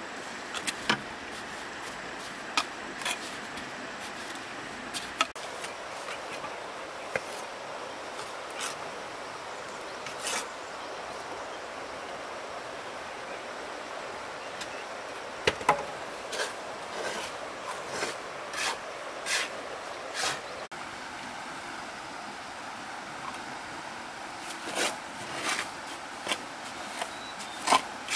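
Scattered, irregular knocks and light scrapes of manual building work over a steady background hiss.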